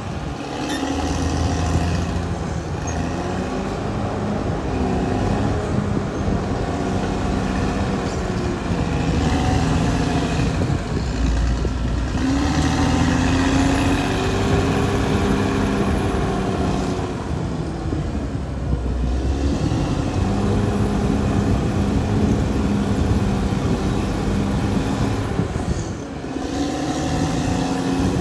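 Caterpillar D6R XL bulldozer's diesel engine working under load, its note rising and falling again and again as the load changes.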